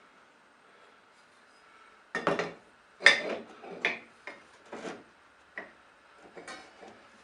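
A quiet start, then a run of about eight sharp knocks and clatters from about two seconds in, some with a short rattle: hard objects such as wood and tools being handled and set down.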